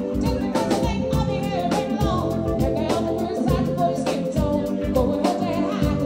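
A live band playing an upbeat song with a steady drum beat: a woman singing lead over electric guitars, keyboards and a drum kit.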